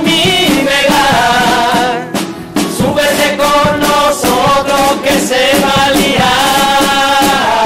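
A carnival chirigota chorus of men singing together, accompanied by strummed Spanish guitars and a drum, with a brief pause about two seconds in.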